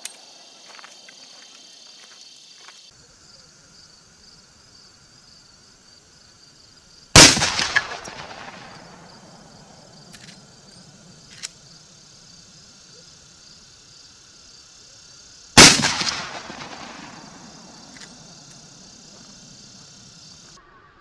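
Two rifle shots from a Marlin 1895 .45-70 Government lever-action, about eight seconds apart. Each is a single sharp report followed by an echo that fades over about two seconds.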